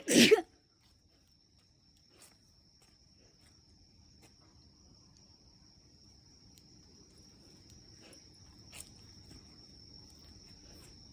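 A person's loud sneeze ending within the first half-second, then insects trilling: one steady, high, unbroken tone, with faint ticks now and then.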